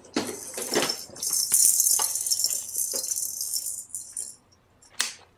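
Rattling and jingling of small hard pieces for about three seconds, starting about a second in, with a few soft knocks before it and one sharp click near the end.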